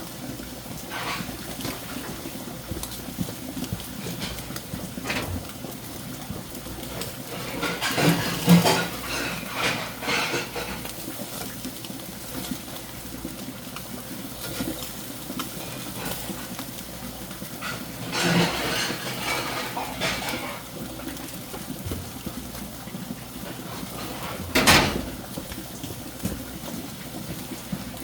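Dishes and cutlery clattering in scattered bursts of clinks and knocks, with one sharp knock near the end.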